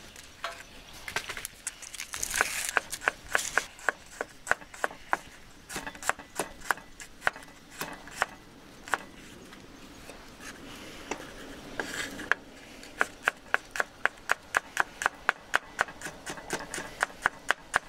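Kitchen knife slicing garlic cloves on a wooden cutting board: runs of sharp knocks as the blade meets the board, several a second, with a pause of a few seconds in the middle.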